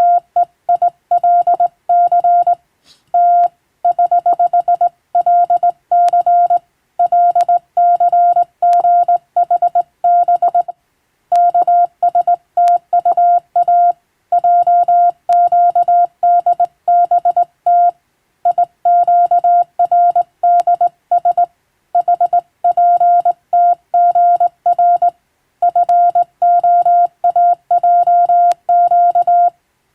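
Morse code (CW): a single steady mid-pitched tone keyed into a brisk, continuous run of dots and dashes, broken only by short gaps between characters and words, as in English-text telegram sending practice.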